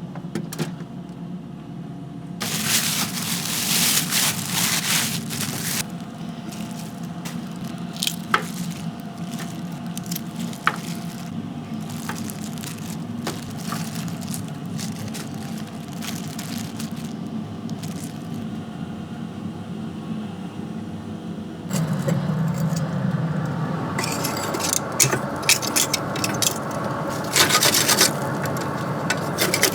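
Kitchen work sounds: scraping and rubbing with scattered sharp clicks and knocks. The sound changes abruptly about two seconds in and again a little over twenty seconds in.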